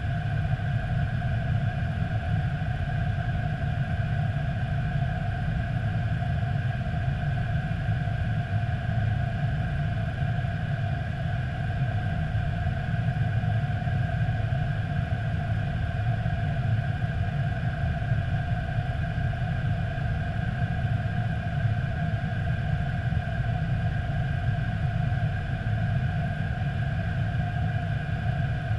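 Airbus A320 cockpit noise in flight: a steady low rumble of airflow and engines, with two steady higher hum tones over it.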